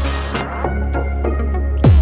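Background music: an electronic beat over a sustained deep bass, with the high end thinning out through the middle and a deep, falling kick drum hit near the end.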